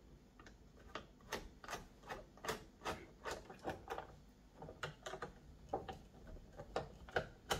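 Light, irregular clicks and ticks of a hand screwdriver turning out the terminal screws that hold cables to a solar inverter's circuit board, about two or three clicks a second.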